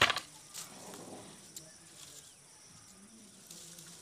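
Dry twigs snapping and dry brushwood rustling as they are broken and handled. A sharp snap right at the start, a couple of smaller cracks in the first second and a half, then faint crackly rustling.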